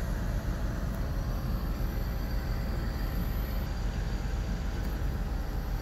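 Ozonizer 2C water treatment machine running, its hose bubbling into a jar of water: a steady machine noise over a low rumble.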